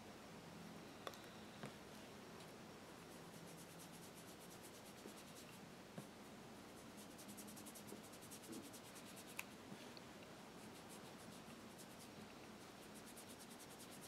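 Faint, near-silent rubbing and scratching of a sponge-tip applicator working gold chrome pigment powder onto a gel-coated plastic nail, with a few faint light clicks.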